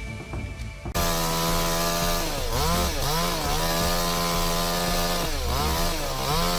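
Chainsaw cutting wood. It cuts in suddenly about a second in and runs at high revs, its pitch dipping and recovering twice as the chain loads up in the cut.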